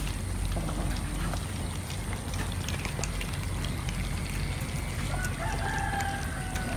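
Several cats chewing and tearing at raw chicken, with faint wet clicks, over a steady low rumble. About five seconds in, a drawn-out animal call starts and runs almost to the end.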